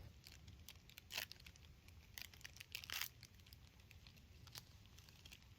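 Near silence with faint, scattered crackling clicks and rustles. A few slightly louder clicks come about one, two and three seconds in.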